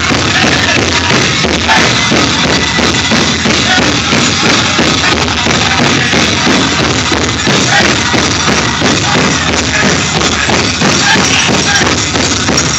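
Powwow drum group playing a prairie chicken dance song: a steady fast beat on the big drum with singers' voices, and jingling from the dancers' regalia.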